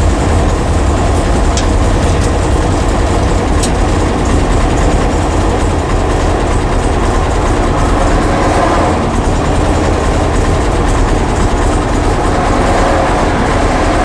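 1966 Porsche 912 on the move, heard from inside the cabin: its air-cooled flat-four engine running under road and wind noise, a steady low rumble.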